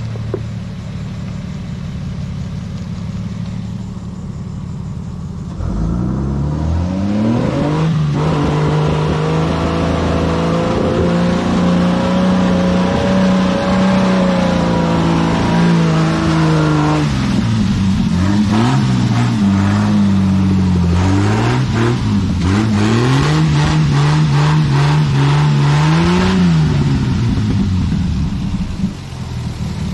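1990 Ford Maverick four-wheel drive engine climbing a muddy track. After a low rumble it revs up sharply about six seconds in and holds high revs for about ten seconds. The revs then rise and fall again and again as the throttle is worked, and drop away near the end as the vehicle passes close by.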